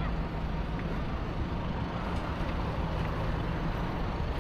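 Motor vehicle engine running nearby with a steady low rumble.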